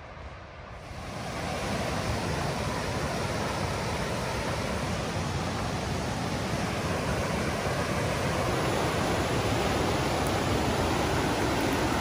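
Mountain river water rushing: a steady, dense roar that builds about a second in and then holds evenly.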